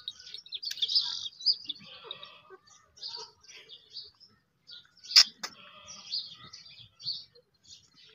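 Birds chirping in many short, high calls, with a single sharp click about five seconds in.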